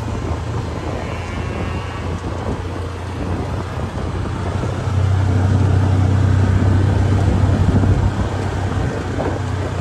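Vehicle engine running while driving, a steady low drone with road and wind noise, getting louder about five seconds in.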